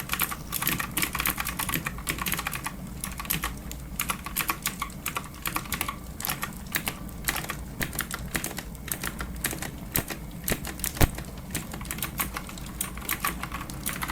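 Typing on a clicky computer keyboard: a steady, uneven run of keystrokes, with one louder key strike about eleven seconds in.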